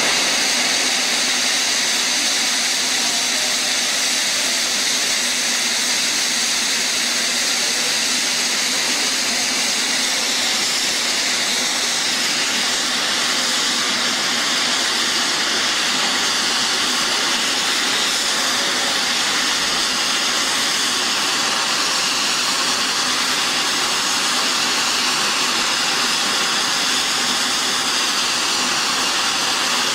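Ice-geyser special-effect jets venting plumes of cold white vapour: a steady, unbroken hiss.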